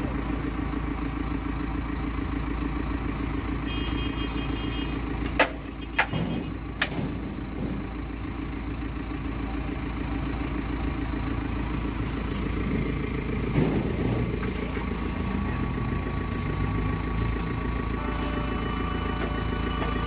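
A 2011 JCB backhoe loader's diesel engine idling steadily, with three sharp knocks between about five and seven seconds in.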